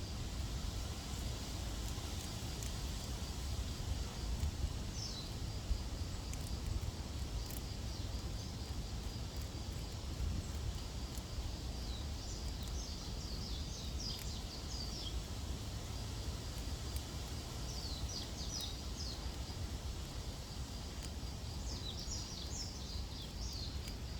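Outdoor ambience: a steady low rumble under a faint, even high pulsing, with small birds chirping in short bursts several times.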